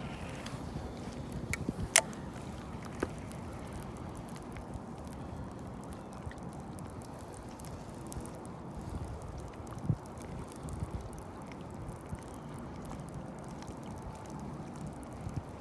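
Faint water lapping and trickling against a small boat, with one sharp click about two seconds in, a softer one a second later, and a dull knock near ten seconds.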